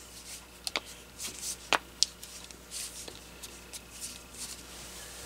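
Plastic battery cover of a Kyocera DuraXV flip phone being fitted onto the back of the phone: a few light, sharp clicks among soft rubbing of hands on the plastic case.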